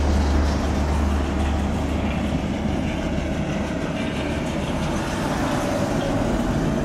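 Diesel engines of asphalt-paving machinery (a Vögele paver, a dump truck and road rollers) running steadily at work. A deep low hum fades away about a second in.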